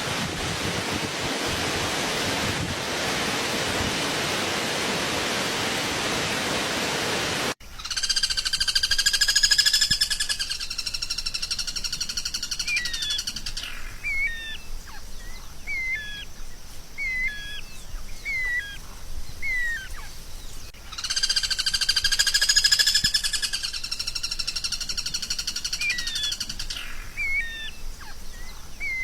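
A steady hiss that cuts off abruptly, then a songbird singing: a fast buzzing trill held for several seconds, followed by a run of short, sharp chirps about one a second, the trill-and-chirp phrase then repeating.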